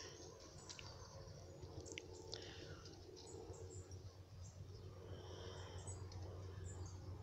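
Quiet outdoor background: a low steady hum with faint scattered chirps and light rustles.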